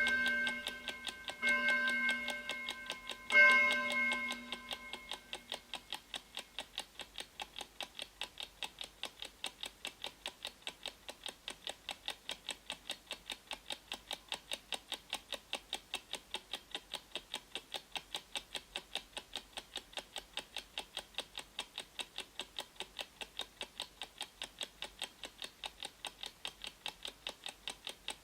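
A countdown timer's clock-tick sound effect: three pitched chimes in the first few seconds, the third the loudest, each ringing on and fading, then steady, even ticking at about three to four ticks a second.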